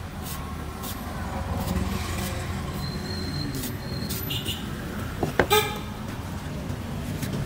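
Heavy cleaver repeatedly striking and shaving the soft husk of a young green coconut on a wooden board, a sharp hit every second or so, over a steady rumble of street traffic. A vehicle horn toots briefly about five and a half seconds in, the loudest sound.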